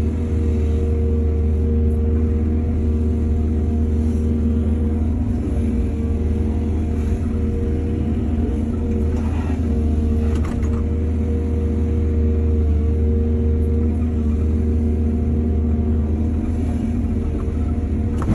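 Heavy diesel engine of an excavator running steadily with a deep hum, with a couple of faint clanks about halfway through.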